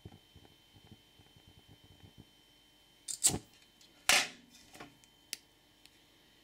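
Metal clatter and clanks as a can and a small steel pot are handled over a lit alcohol stove: a clatter about three seconds in, a louder ringing clank about a second later, then a couple of sharp clicks. Before that, only faint irregular ticking.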